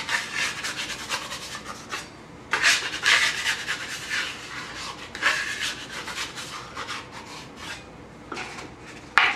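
Wide metal scraper blade scraping across a floured wooden butcher-block counter as it is slid under rolled-out pie pastry to free it, in three long scraping strokes, followed by two short knocks near the end.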